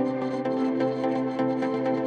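Background music with sustained, layered tones.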